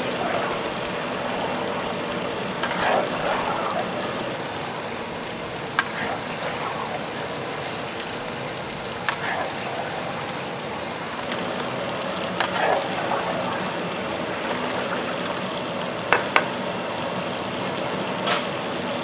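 Metal ladle stirring a large iron pot of simmering broth with tofu, knocking sharply against the pot every few seconds, about six times, over a steady bubbling hiss.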